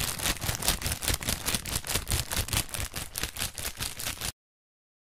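A dense, irregular crackle of rapid clicks, many a second, that cuts off abruptly about four seconds in.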